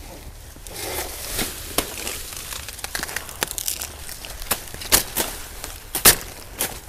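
Banana leaves rustling and tearing as they are cut with a sickle and pulled by hand, with a string of sharp snaps, the loudest about six seconds in.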